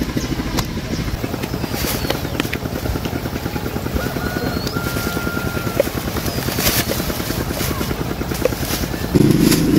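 A small engine running steadily with a rapid, even beat, growing louder just before the end.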